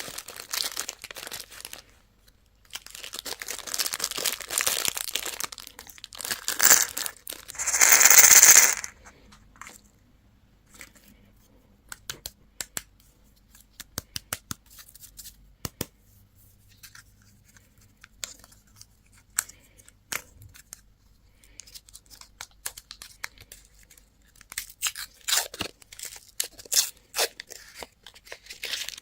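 Candy wrappers being crinkled and torn open, with the loudest tear about eight seconds in, then scattered small clicks and taps, and more crinkling near the end.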